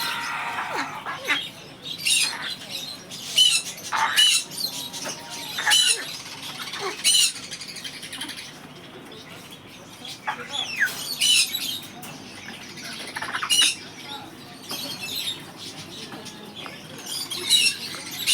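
Young African grey parrot making short, sharp, high squawks and chirps every second or two, with a quieter pause about halfway through.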